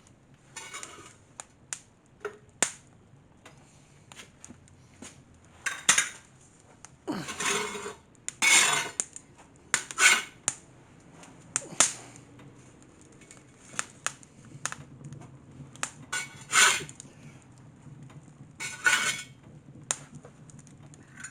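Wood fire burning a sawdust-packed cardboard box, crackling and popping: irregular sharp cracks, with a few longer bursts of crackle lasting up to a second.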